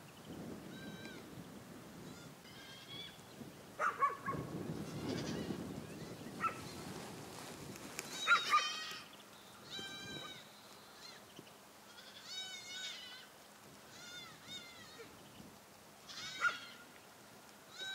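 Goats bleating, a series of short quavering bleats from several animals, about one every second or two.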